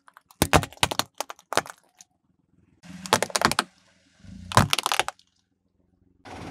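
Plastic toys cracking and snapping under a car tyre, then a glitter-coated Christmas bauble bursting with a quick cluster of sharp cracks. The cracks come in three short bunches with brief silences between them.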